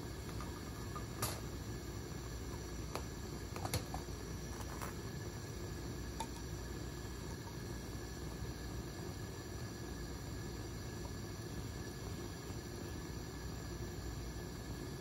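Steady low hum of laboratory room noise, like ventilation, with a few light clicks and taps in the first six seconds.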